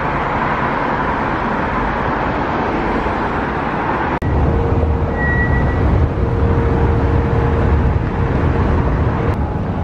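Steady city street traffic noise, cars passing. Sound cuts briefly about four seconds in, then a deeper rumble and a faint steady hum take over.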